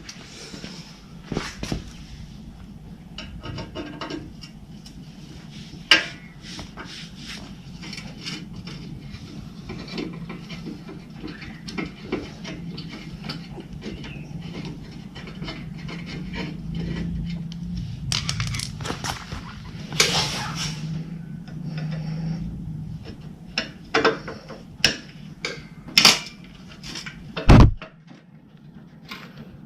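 Hyosung GV250 V-twin engine running at a steady low idle under repeated metallic clicks, clinks and knocks of parts and tools being handled. A heavy thump comes near the end, and the engine hum stops there.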